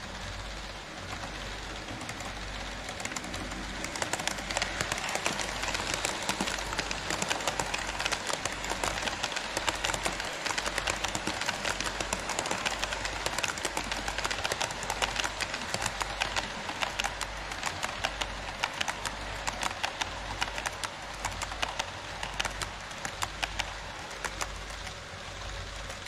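HO scale model train, an ED79-hauled Twilight Express, running past on KATO Unitrack: its wheels rumble and click rapidly over the rail joints, building up about four seconds in and fading near the end as the train passes.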